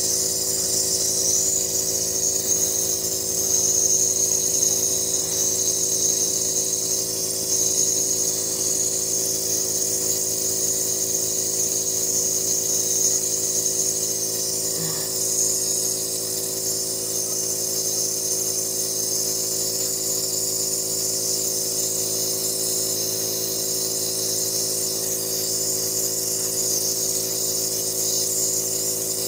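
Nebulizer air compressor running an asthma medication treatment: a steady buzzing hum with a constant hiss of air over it.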